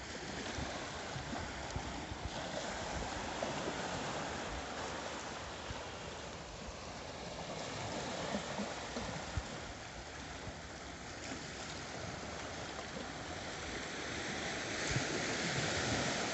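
Small sea waves breaking and washing over rocks along the shore, a steady wash of surf that grows louder near the end.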